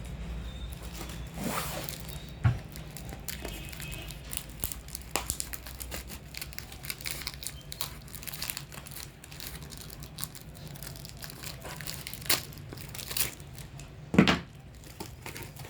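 Parcel packaging being torn open and crinkled by hand, a steady run of small crackles and rips, with a couple of louder knocks, about two seconds in and near the end.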